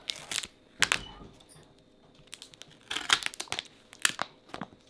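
Plastic protective film being peeled and torn off a new foldable phone, crinkling in short scattered bursts: right at the start, about a second in, and again between three and four and a half seconds in.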